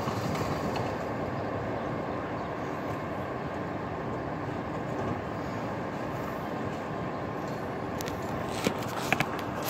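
A rear-loading garbage truck running steadily while stopped on a collection, with a few sharp clacks near the end.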